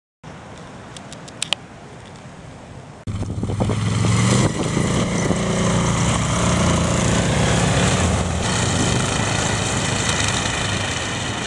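Small electric motor and propeller of a scratch-built foam RC plane running at high throttle: a steady whine that jumps in abruptly about three seconds in, after a quieter stretch with a couple of clicks.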